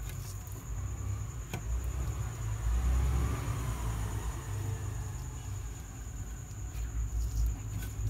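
Quiet handling of a circuit board as a new IC is pressed into place, with one light click about one and a half seconds in, over a low steady rumble.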